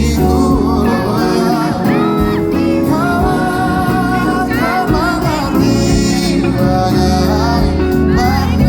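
A live band playing a pop song with singing over it, recorded from the audience.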